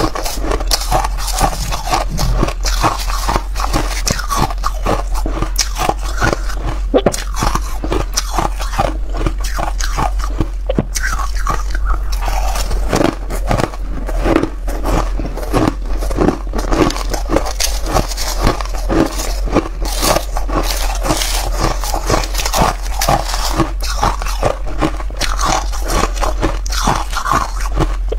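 Close-miked crunching and chewing of powdery white ice in the mouth: a rapid, continuous run of crisp crunches.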